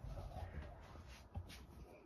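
Faint handling noise: soft rustling and small ticks of things being moved on a padded fabric gun case, with one short knock about one and a half seconds in.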